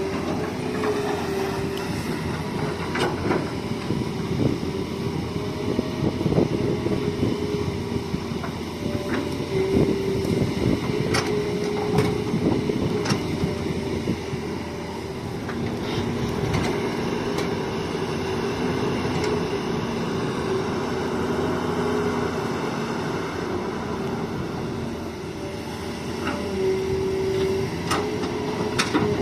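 Hitachi hydraulic excavator working: its engine and hydraulics running steadily with a held tone that shifts in pitch now and then, and scattered sharp metallic clanks.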